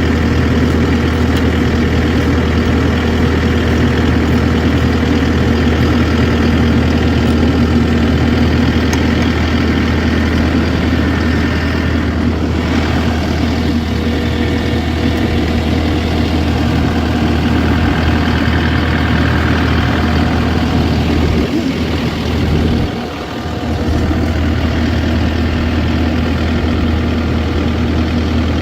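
Large engine idling steadily, with a brief drop in level about three quarters of the way through.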